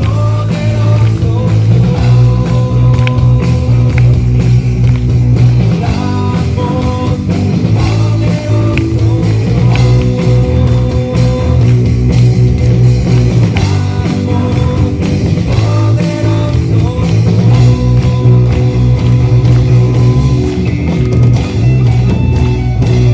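Christian worship music played loud by a band with guitar, bass and drum kit, an instrumental stretch of sustained chords with heavy bass.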